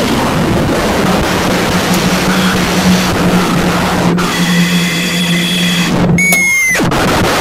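Train running past with a loud rushing rumble and a steady low hum. A high-pitched siren tone comes in faintly about four seconds in, then sounds loud and clear about six seconds in for under a second, sagging slightly as it stops.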